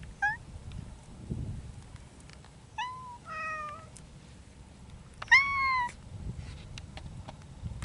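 Cats meowing: four meows a second or two apart, the last and loudest a drawn-out one about five seconds in.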